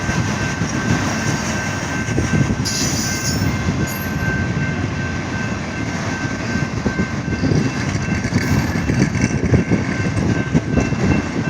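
Norfolk Southern freight train rolling past, its cars making a loud, steady racket, with a short hiss about three seconds in.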